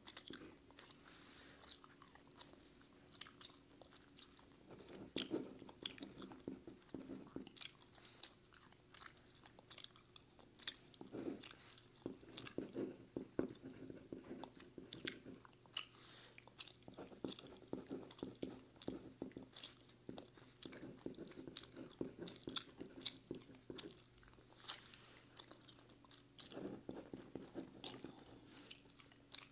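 Close-miked chewing, with many irregular sharp mouth clicks throughout.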